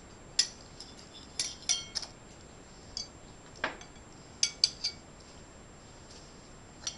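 A small metal fork clinking and scraping against a bowl as a child twirls spaghetti: about ten sharp, irregular clinks.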